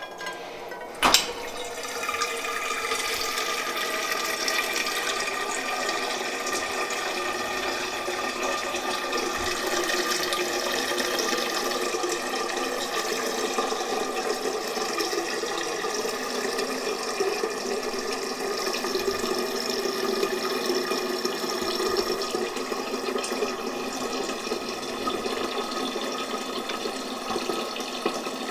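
A click about a second in, then water running steadily into a container as it fills.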